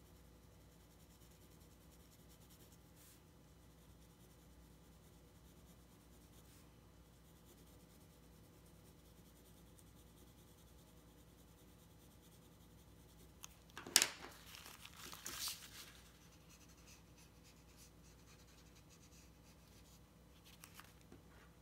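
Faint pencil shading on drawing paper, then about 14 seconds in a sharp crackle and rustle of a paper sheet being handled that lasts about two seconds, with a softer rustle near the end.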